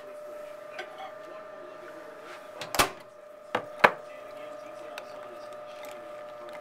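Spatula and glass Pyrex bowl of chocolate knocking against each other and on the counter: three sharp knocks around three to four seconds in, the last the loudest, over a steady hum.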